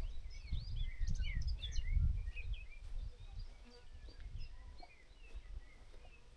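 Small songbirds chirping and twittering in quick, overlapping calls, busiest in the first three seconds and sparser after, over an uneven low rumble.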